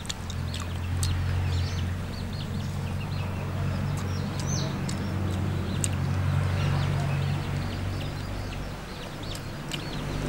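Birds chirping in many short, high calls over a steady low hum, with a few sharp clicks.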